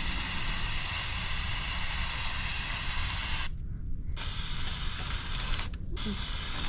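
Aerosol silly-string can spraying, a steady hiss in long bursts that breaks off for about half a second some three and a half seconds in and again briefly near the end.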